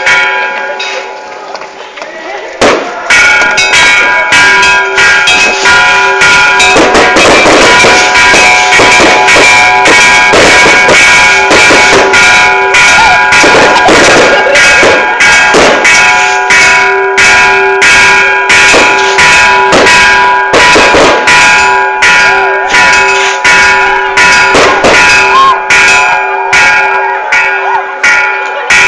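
A bell struck rapidly and repeatedly, about two or three strikes a second. Its tones ring on continuously between strikes, and the striking becomes loud and steady a couple of seconds in. Faint shouting voices come through in the middle.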